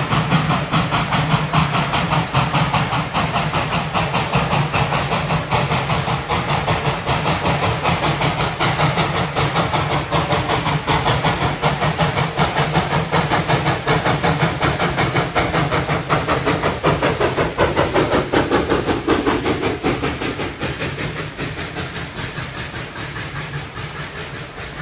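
Tweetsie Railroad's narrow-gauge steam locomotive working past with a fast, steady exhaust beat and hiss of steam, then its open passenger coaches rolling by on the rails. The sound fades over the last few seconds as the train moves away.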